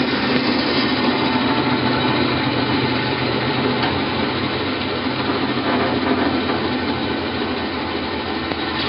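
Davis & Wells vertical band saw running under power, a steady machine noise with a low motor hum and the whir of the blade.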